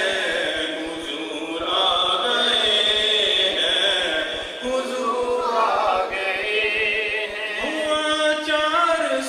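A man singing an Urdu naat solo into a microphone, in long held notes with wavering, ornamented pitch.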